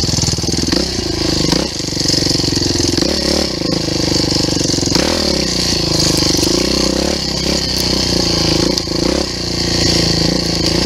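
Engine of an off-road motor vehicle running under load, its revs dropping and climbing again every second or two.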